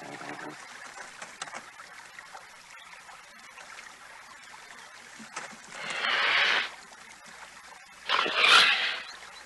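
Cougar snarling at a black bear: two harsh hissing snarls about two seconds apart, the second the louder, over the steady low rush of a shallow river.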